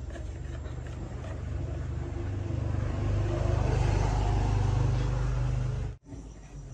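A motor running steadily with a low hum, growing louder over the first few seconds, then cut off abruptly near the end.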